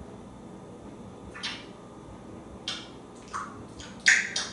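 An African grey parrot making a handful of short, wet-sounding clicks and hisses spaced about a second or less apart, the loudest about four seconds in.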